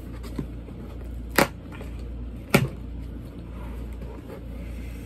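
Cardboard shipping box being opened by hand, its flaps rustling as they are pulled apart, with two sharp snaps about a second apart.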